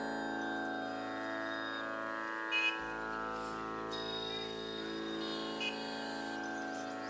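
Background music in Indian style: a steady drone of many held tones with plucked string notes, two brief bright accents standing out about two and a half and five and a half seconds in.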